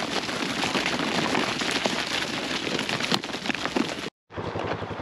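Many sheep hooves pattering as a mob of sheep runs out through a gate, a dense crackle of small knocks. The sound breaks off briefly about four seconds in and then carries on.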